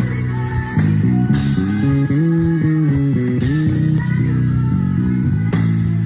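Live band music as heard in a bassist's in-ear monitor mix, with the electric bass up front playing a moving line with slides between notes over drums.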